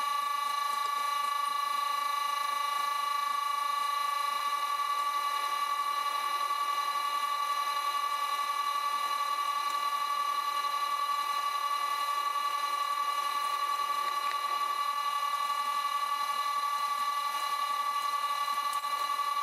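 Vintage Karger lathe running from a VFD-driven motor, giving a steady high-pitched whine made of several even tones, while a twist drill bores into the spinning metal workpiece.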